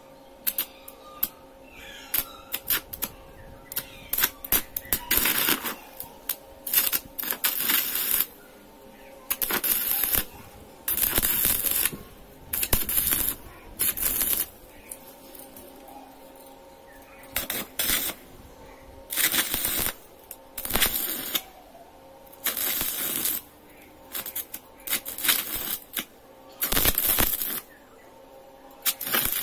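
Stick (arc) welding on steel: the electrode is struck several times with short clicks, then about a dozen welds of half a second to a second and a half each, the arc sizzling in separate bursts over a faint steady hum.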